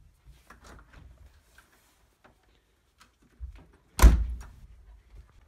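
Faint footsteps and rustling, then a door slammed shut once about four seconds in, a loud sharp bang with a heavy low thud.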